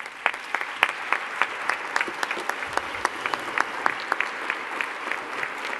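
Audience applauding steadily at the close of a talk, with many individual claps standing out.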